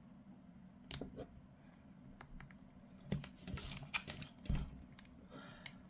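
Faint, irregular small clicks and taps of miniature kit parts being handled and pressed together on a desk.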